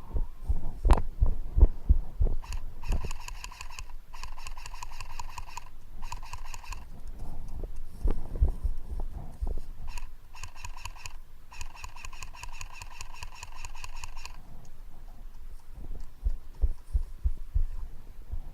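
Airsoft electric gun firing several full-auto bursts, a rapid even rattle of its gearbox cycling, with longer strings in the middle of the stretch. Heavy low thumps come before and after the bursts.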